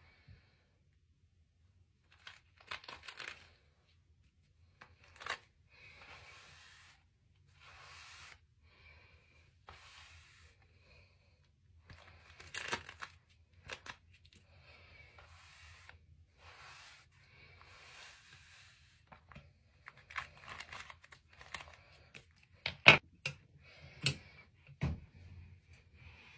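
Bristle hairbrush dragged through long hair in repeated short swishing strokes, followed near the end by a few sharp snips of scissors cutting hair.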